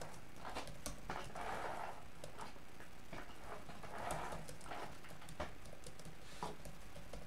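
Paper and cardstock being handled on a craft desk: soft swishes of a tool rubbed over paper masks, about a second and a half in and again about four seconds in, with light taps and rustles as the card panel is lifted.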